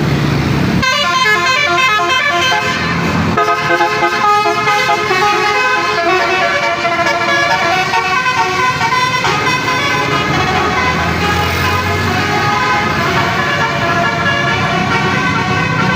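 Bus's basuri musical air horn (telolet horn) playing a tune, starting about a second in, its notes changing in quick steps.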